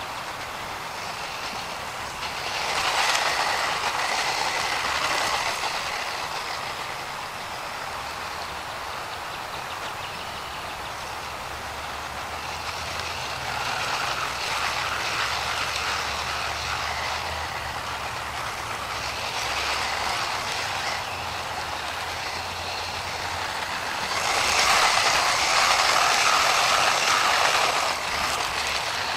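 DEERC 300e 1/18-scale brushless 4x4 RC monster truck being driven: motor whine and tyre noise. It swells loudest twice, at hard acceleration a few seconds in and again a few seconds before the end.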